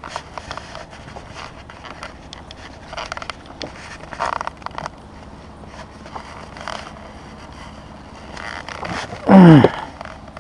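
Handling noise of fishing gear on wooden boards: scrapes and rustles of a landing net and tackle being moved about. Near the end there is one loud, brief sound that falls sharply in pitch.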